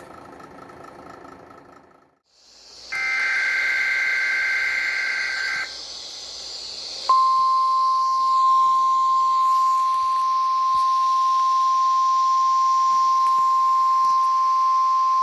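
Weather radio alert coming in over radio hiss: about three seconds of two-tone digital data squawk, the SAME header. A brief dip follows, then a single steady high tone starts abruptly about seven seconds in and holds, the 1050 Hz warning alarm tone that comes before the alert message.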